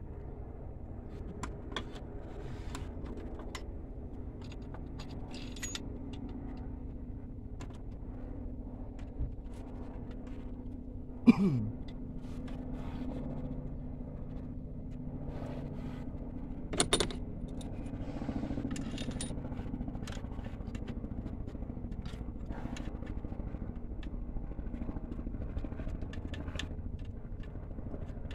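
Hand tools and metal parts clinking and tapping during an alternator install, over a steady low hum. A sharp knock stands out about eleven seconds in, followed by a short falling squeak, and another knock comes near seventeen seconds.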